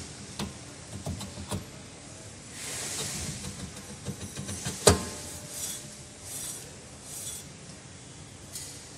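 Rear brake drum being worked by hand onto the wheel hub over the brake shoes: scraping and light metal knocks, with one sharp metallic clank about five seconds in.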